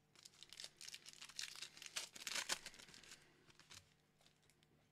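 Foil Pokémon booster pack wrapper crinkling and tearing as it is opened: a run of crackles lasting about three seconds, loudest a little after two seconds in, then dying away.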